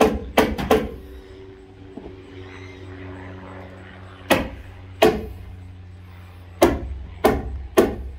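Staple gun firing staples through a plastic tarp curtain into a wooden barn header: eight sharp snaps, three in quick succession at the start, two more around the middle and three near the end.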